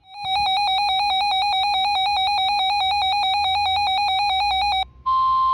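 An electronic warbling tone, buzzy and rapidly alternating in pitch, sounds for about four and a half seconds. After a brief break, a steady single-pitch tone near 1 kHz begins. That tone is the NOAA Weather Radio 1050 Hz warning alarm tone that comes before a severe thunderstorm warning.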